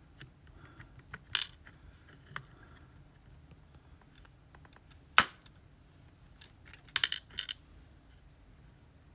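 Sparse metallic clicks and clinks of a pin-tumbler lock being taken apart: small steel parts and tools tapping on a hard surface. There is one click early, a sharp loud one about halfway, and a quick run of three or four clinks a couple of seconds later.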